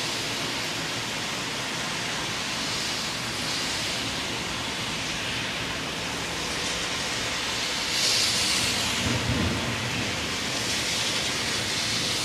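Heavy rain falling steadily, with a roll of thunder about eight seconds in, following a lightning flash.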